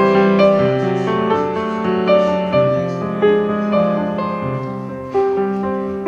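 Background piano music: slow, gentle notes and chords struck and left to fade.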